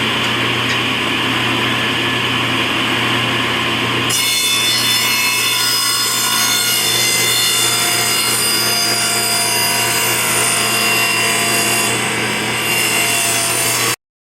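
ShopSmith table saw running at full speed with a steady hum. From about four seconds in, its blade is cutting through wood. The sound cuts off suddenly near the end.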